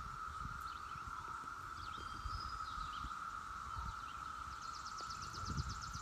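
Chorus of Brood IX periodical cicadas: a steady, unbroken drone. Short bird chirps sound over it, and a fast high trill comes in near the end. Underneath is a low, irregular rumble.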